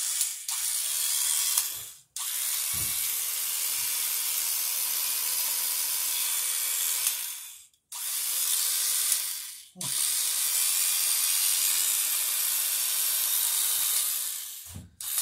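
Corded electric drill running in several runs of a few seconds each, with brief stops between, boring rivet holes through the wooden cleats and bottom boards of a dory. The drill seems a little slow, and the owner thinks a squirt of oil might help.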